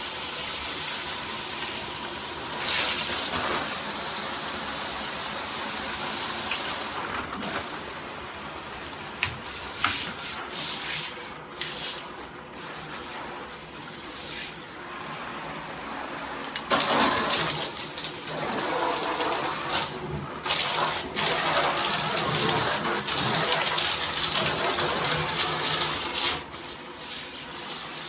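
Shower head spraying water, a steady hiss with two louder stretches of hard spray: one about three seconds in lasting about four seconds, and a longer one from about seventeen seconds lasting about ten seconds.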